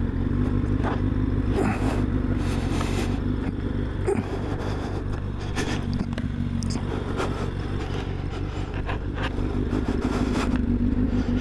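A motor vehicle's engine running steadily with road noise, with a few brief clicks and scrapes scattered through it.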